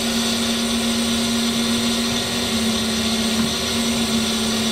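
Brown & Sharpe Micromaster 618 surface grinder running, with the grinding-wheel spindle and hydraulic system switched on, giving a steady hum with an even hiss. The hydraulics are being cycled to bleed air from the system after the machine has stood.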